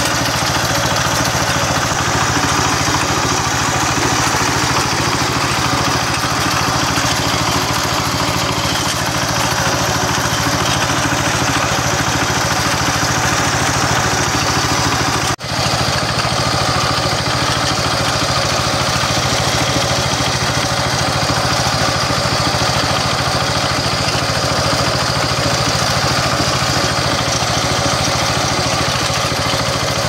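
Kentavr MB 1010DE-6 walk-behind tractor's single-cylinder diesel engine running steadily while driving a belt-driven shaker potato digger along a row. There is a very short break about halfway through.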